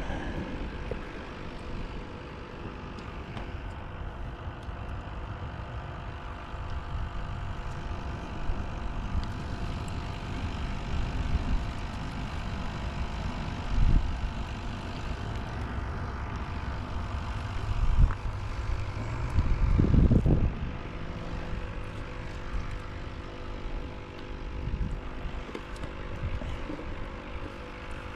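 Wind rumbling on the microphone over a steady engine-like drone, with a louder low surge about twenty seconds in.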